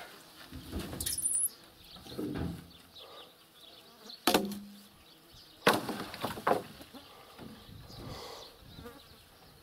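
Birch poles thrown off a truck bed, landing on a pile of poles with wooden thuds and clatter. The two loudest crashes come about four and about six seconds in.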